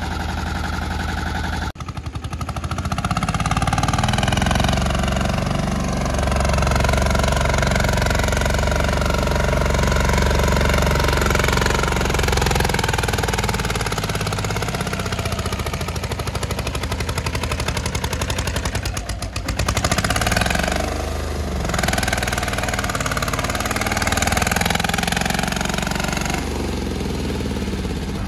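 Mini tractor engine running under load, its pitch and level rising and falling with brief dips.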